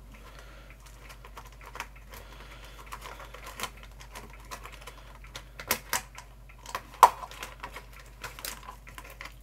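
Irregular clicking and knocking of parts being handled as the cooling fan is worked loose from an induction hob, with one sharper knock about seven seconds in.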